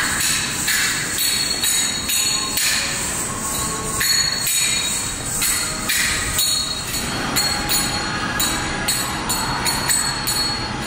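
Kathak dance footwork: bare feet striking a wooden floor in a quick, even rhythm, with ankle bells jingling at each strike.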